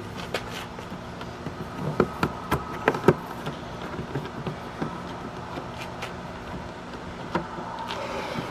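Scattered small clicks and knocks of a plastic mounting bracket and its bolt being handled and fitted onto a plastic kayak deck, busiest about two to three seconds in, over a steady low background hum.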